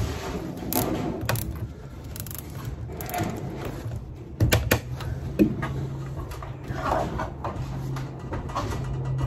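A nylon zip tie being pulled tight around the foil jacket of an insulated flex duct: crinkling foil and ratcheting clicks, with a cluster of sharp clicks about four and a half seconds in. A low steady hum comes in at the same moment and carries on.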